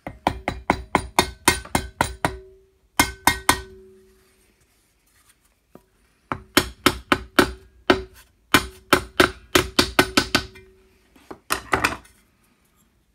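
Hammer striking a wooden block to fold the tabs of a 1.5 mm aluminium sheet bracket held in a bench vice. The strikes come in four quick runs of about five blows a second, and many blows are followed by a short ringing tone.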